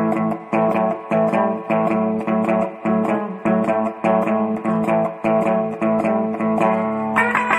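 Intro music: a guitar riff played in a steady repeating rhythm, with higher, brighter notes coming in near the end.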